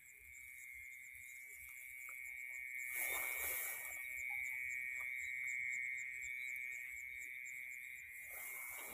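Night chorus of crickets in a rice paddy: a steady high-pitched trill, with a faster ticking call above it in the second half. A brief rustle of rice stalks comes about three seconds in.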